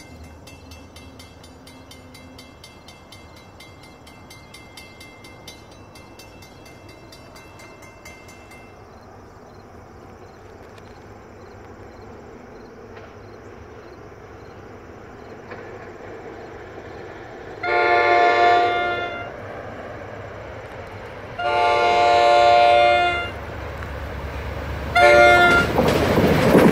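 NJ Transit commuter train approaching, its horn on the leading cab car sounding two long blasts and a short one, with a fourth beginning near the end: the long-long-short-long grade-crossing signal. The rumble of the train grows steadily louder as it nears.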